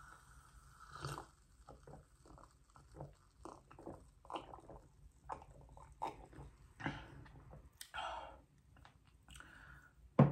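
Close-miked gulping and swallowing as a drink is taken from a glass mug: a string of short, irregular wet gulps, roughly one or two a second. A single sharp knock near the end is the loudest sound.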